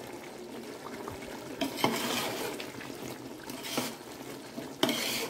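A wooden-handled spatula stirring wet, boiling rice in an aluminium pot, with sloshing and scraping against the pot; three louder strokes stand out. This is the stage where lemon juice is mixed into the biryani rice once it has started to cook.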